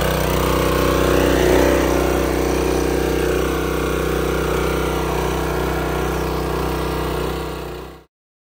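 Honda small engine on a 2500 PSI pressure washer running at a steady speed, its carburettor freshly cleaned. The sound cuts off abruptly near the end.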